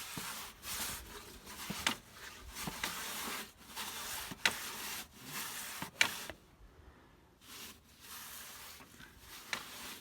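Cleaning a greasy tractor handbrake band: a run of short hissy rubbing strokes, mostly high in pitch, with a few sharp clicks and a brief pause a little past the middle.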